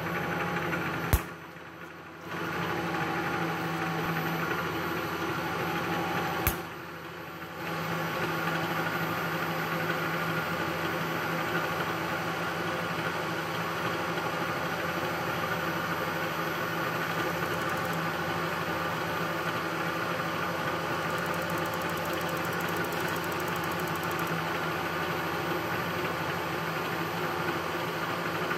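Bridgeport milling machine's spindle running steadily, turning an edge finder. Two sharp clicks, about a second and six and a half seconds in, are each followed by a brief drop in the sound before it comes back up.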